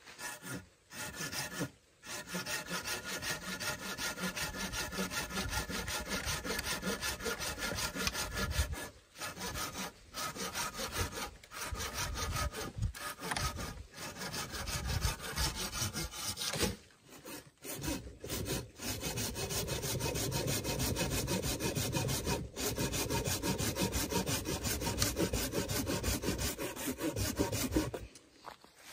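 Wood being sawn by hand: steady, fast back-and-forth saw strokes with a few brief pauses, stopping shortly before the end.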